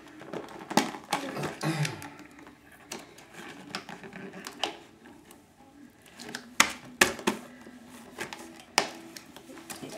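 Scattered clicks, taps and rustles of hands working at a toy's cardboard and plastic packaging, with a few sharp snaps in the second half.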